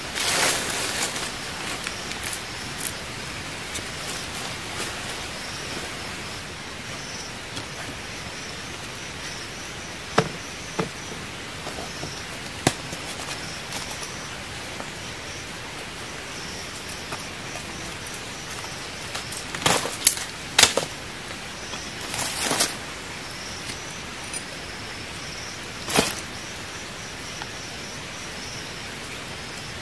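A few sharp knocks and cracks of bamboo as a bamboo trap is worked with a machete and bound by hand, two of them close together about two-thirds of the way in. Under them runs a steady forest hiss with a faint, pulsing insect call.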